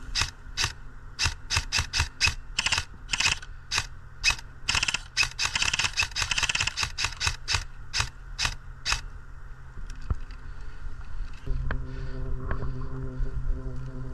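Airsoft guns firing: a string of sharp, irregular shots, with a dense run of rapid fire about five to seven seconds in. The shooting stops near the nine-second mark, and a steady low hum starts about eleven seconds in.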